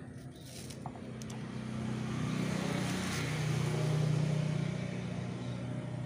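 A motor vehicle's engine passing by, growing louder to a peak about four seconds in and then fading.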